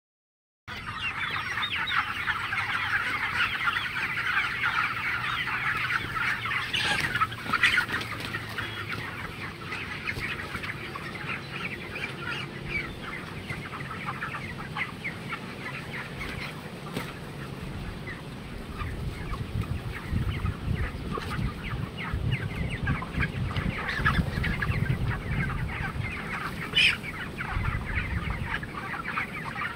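A large flock of 27-day-old broiler chickens calling continuously, a dense chatter of short peeps and clucks with a few louder single calls standing out. A low rumble runs under it through the last third.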